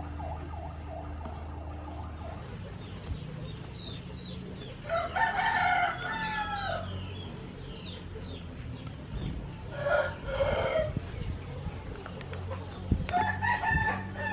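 A rooster crowing three times, a few seconds apart, each crow ending on a falling pitch.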